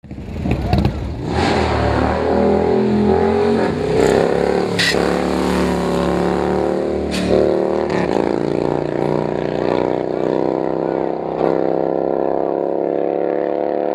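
Big motorcycle V-twin engine running hard and revving while a bagger rides a wheelie, its pitch shifting early on and then holding and slowly rising. A few sharp cracks are heard, the loudest about five seconds in.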